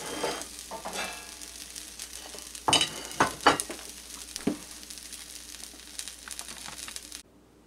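Diced chicken and dried chilies sizzling in a hot non-stick frying pan. A handful of sharp knocks come between about three and four and a half seconds in, and the sizzling cuts off just before the end.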